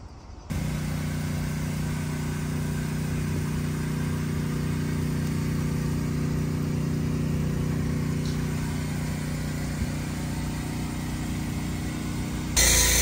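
Small gasoline engine of a van-mounted pressure washer starting up and running at a steady speed. Near the end a louder rushing hiss joins it.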